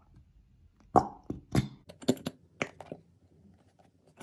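Squeezable plastic Elmer's school glue bottle being emptied into a glass bowl, sputtering glue and air out in a series of sharp pops and plops between about one and three seconds in.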